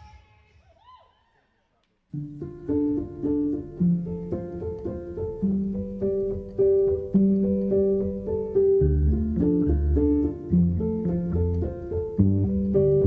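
Instrumental music starts suddenly about two seconds in, after a moment of near silence: a repeating pattern of short melodic notes, with deep bass notes joining a little past the middle.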